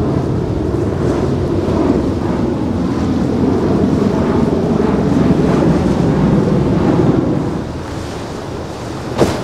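A pair of V-22 Osprey tiltrotor aircraft flying overhead: a loud, steady low rumble of rotors and engines. A little before the end it falls away to quieter wind and water noise, and a sharp knock comes just before the close.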